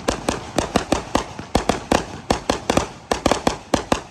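Fireworks going off in a rapid, irregular string of sharp bangs, several a second, like a string of firecrackers.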